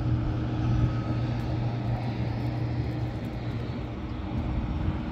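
A steady low mechanical hum, like a motor running, easing off a little after about three seconds.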